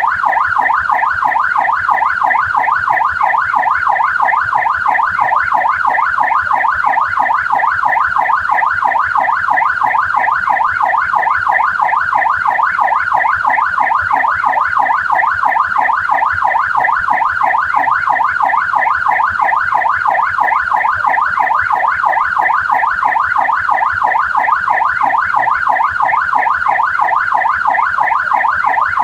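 Australian police car siren on its yelp setting: a loud, fast up-and-down wail, about four sweeps a second, repeating without a break.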